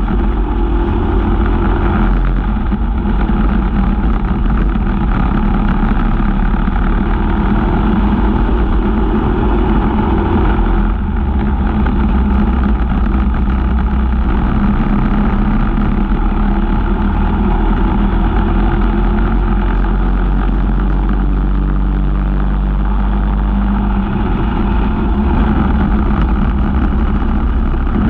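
Briggs & Stratton LO206 four-stroke single-cylinder kart engine running hard at race pace. Its pitch shifts as the kart goes through the turns, and it eases off briefly twice.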